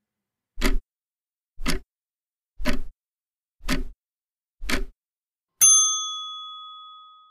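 Countdown timer sound effect for the thinking time: five clock ticks about a second apart, then a single bell ding that rings out and fades over about two seconds.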